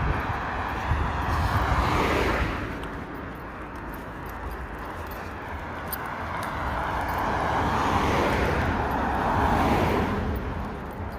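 Road traffic passing: one car's tyre and engine noise fades away about two and a half seconds in, then a second car builds up and passes near the end. Low wind rumble on the microphone underneath.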